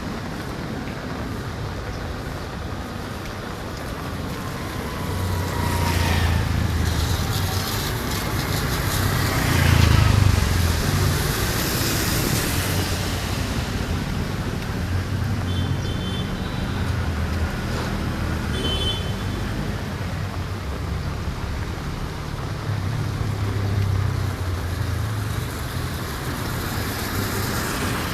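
Road traffic: vehicles pass one after another over a steady background hum, the loudest passing about ten seconds in. A few short high beeps sound around the middle.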